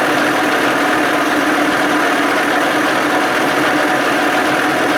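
40 hp Johnson outboard motor idling steadily at about 1200 RPM, warmed up.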